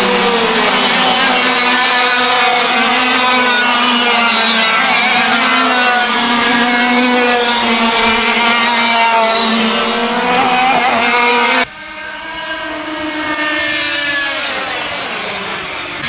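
Several 100cc two-stroke kart engines running at high revs, their pitches wavering with the throttle. About three-quarters of the way through the sound drops suddenly, then builds again as a single kart engine comes closer, its pitch falling near the end.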